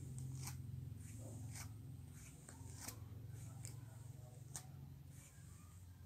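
Comb drawn through long hair in a series of short scratchy strokes, roughly one every half second to second, over a low steady hum.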